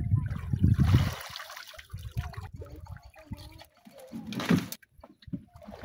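Water splashing and sloshing as a plastic fish trap is hauled up out of shallow water and onto a wooden boat, loudest in the first two seconds, with another sharp splash about four and a half seconds in.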